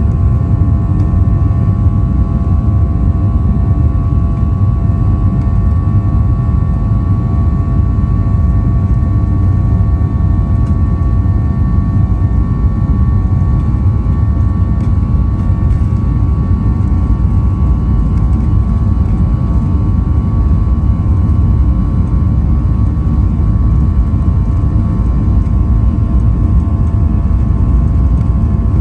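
Boeing 737-800's CFM56 jet engines running steadily, heard from inside the passenger cabin: a loud, even low rumble with a steady whine over it.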